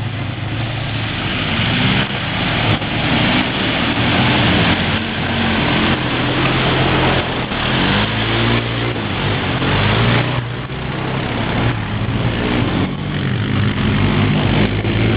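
ATV engine running, its pitch rising and falling as the throttle opens and closes, under a steady rushing noise. The engine eases off briefly about ten seconds in.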